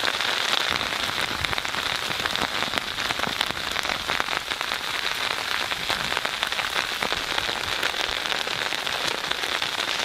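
Ice pellets (sleet) pelting a tent, heard from inside: a dense, steady patter of tiny ticks on the fabric.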